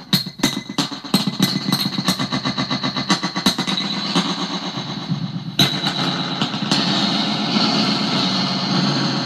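Eurorack modular synth output: a contact-microphone signal sent through a delay module and boosted by the mixer's gain switch, sounding much harder. It is a loud stream of repeating clicks, about three or four a second, that packs into a fast, dense pulsing after about two seconds, with one sharp click near the middle.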